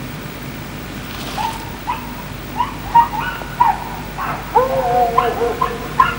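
Dogs barking: short yapping barks begin about a second and a half in and come more often. About halfway through there are longer, drawn-out calls.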